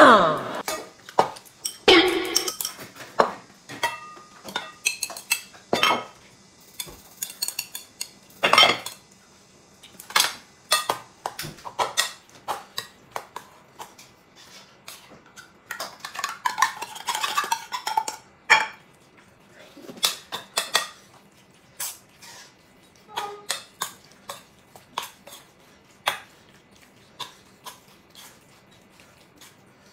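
Metal spoon clinking and scraping against a metal bowl as food is mixed and eaten: irregular sharp clinks throughout, with a busier stretch of stirring about halfway through.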